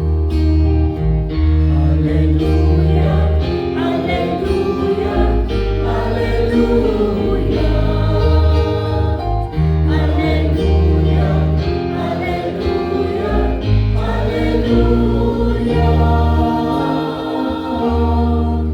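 Church choir singing with keyboard accompaniment and a steady bass line, in held chords that change every second or two.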